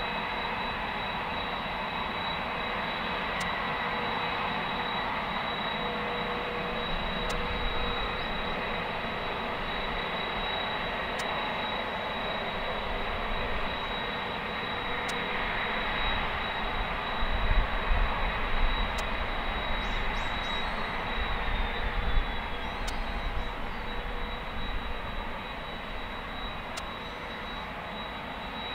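Boeing 767-300's twin turbofan engines running at taxi thrust, a steady high whine over a rushing rumble. About two-thirds of the way through, the low rumble grows louder and uneven for several seconds, and a second whine tone slides down in pitch.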